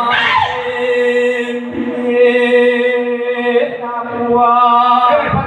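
Voices chanting in long, held notes that stay at one pitch for several seconds, with a brief rise in pitch about two seconds in.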